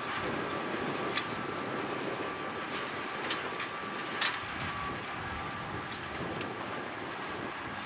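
John Deere 7280R tractor running with a steady drone, with a few sharp metallic clicks and knocks scattered through it; the loudest come about a second in and about four seconds in.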